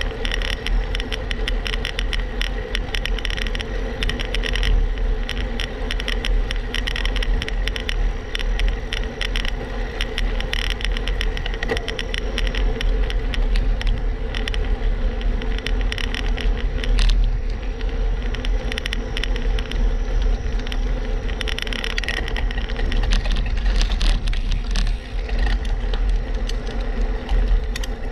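Riding noise of a road bicycle picked up by a camera mounted on the bike: low wind rumble on the microphone, with rapid clicking and rattling from the bike and road at low climbing speed.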